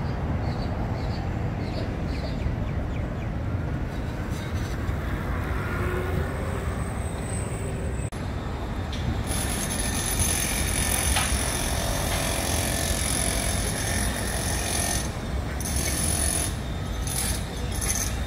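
Outdoor city ambience: a steady low rumble of traffic, with a faint high whine joining about nine seconds in.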